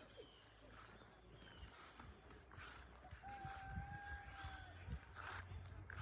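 Faint footsteps on a path under a steady high insect trill, with a single drawn-out call of even pitch held for about a second and a half in the middle.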